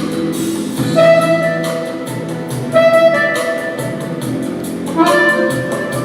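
Instrumental music: a melody of held notes that change about every second, over a steady lower accompaniment.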